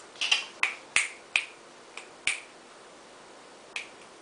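Sharp, short clicks at irregular intervals, about eight in all: a quick cluster in the first two and a half seconds, then a gap, then one more near the end.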